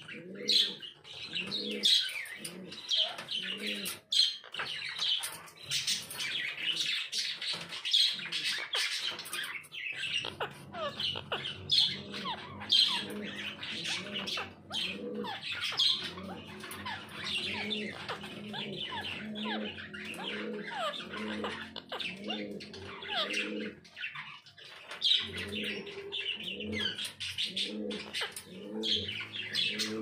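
Aviary birds chirping and squawking in many quick, high calls. From about ten seconds in, a low, repeated cooing runs underneath.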